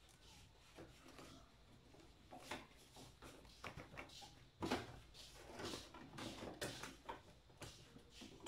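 Faint rustling and light knocks of printer paper being handled: a stack of printed sheets shuffled and slid back into an inkjet printer's rear paper feed for printing the back sides. The loudest rustle comes just before the middle.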